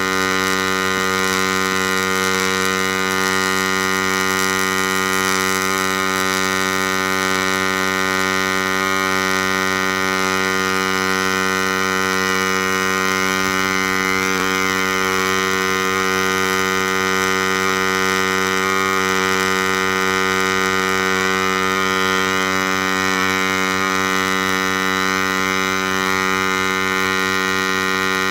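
MIG welding arc burning continuously as a DIY CNC welder lays a bead, heard as a steady, even electrical hum that holds one level throughout.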